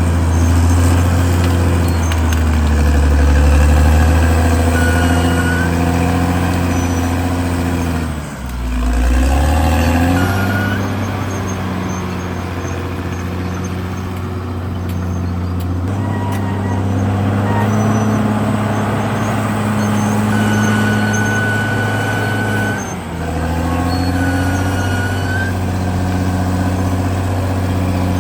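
CAT D6R XL bulldozer's diesel engine running steadily under load. The engine note dips and recovers twice, about eight seconds in and again later on, with a few short high squeaks over it.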